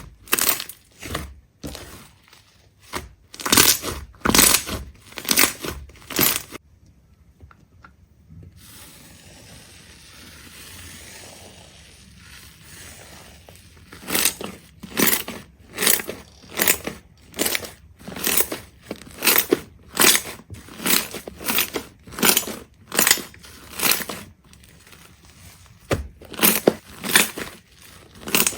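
A series of crisp crunching sounds, about two a second. They stop for several seconds, leaving only a faint hiss, then start again.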